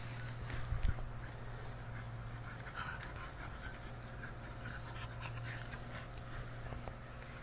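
A dog panting hard while playing, with scattered small rustles and a thump about a second in.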